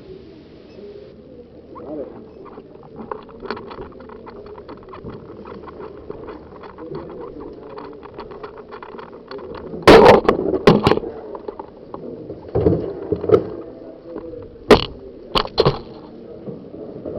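A run of small, quick clicks, then a cluster of loud sharp knocks more than halfway through, with a few more knocks after.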